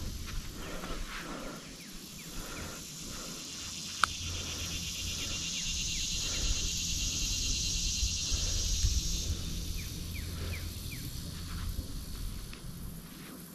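A shrill insect buzz, high and finely pulsing, comes in about two seconds in and cuts off about nine seconds in. Under it are footsteps on sand and a low wind rumble on the microphone, with one sharp click about four seconds in.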